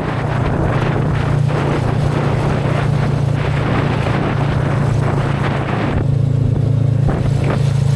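Motorcycle engine droning steadily while cruising on an open highway, with wind rushing over the helmet-mounted microphone; the wind noise drops away about six seconds in while the engine hum carries on.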